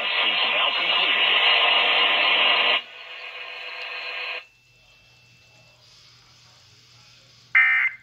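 Broadcast audio through a Sangean portable radio's small speaker: a voice over the station's sound that drops away about three seconds in, fades out by about four and a half seconds, and leaves only faint hum. Near the end, one short, loud burst of data tones, the start of an Emergency Alert System end-of-message signal; the next burst follows about a second later.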